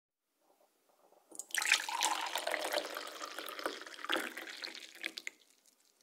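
Coffee poured into a cup: a splashing pour starts about a second and a half in, runs for about four seconds and stops, leaving a few faint drips.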